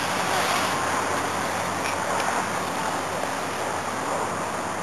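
Steady rushing noise of wind and distant road traffic, with the faint wavering whine of a radio-controlled model airplane's engine flying overhead.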